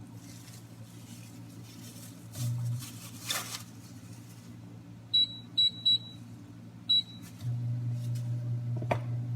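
Four short high electronic beeps from an appliance's button panel, followed after about half a second by a louder steady low hum that switches on and keeps going, over a fainter steady hum.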